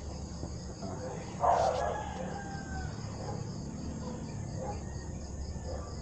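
A rooster crows once, about a second and a half in, over a steady high chirring of insects.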